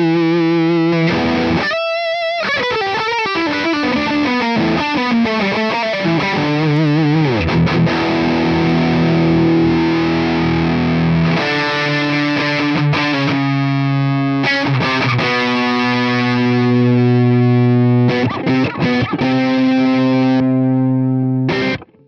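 Electric guitar played through the Sonicake Matribox II Pro's JP Dist model, its emulation of a Boss DS-1 distortion pedal, at full gain with the tone control raised toward maximum. Held distorted chords and some sliding notes, cut off sharply near the end.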